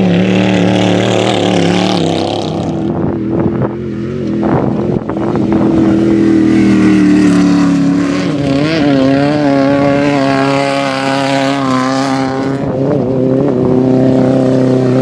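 Off-road race vehicle engines running loud and revving, their pitch rising and falling, with a hiss over the first few seconds.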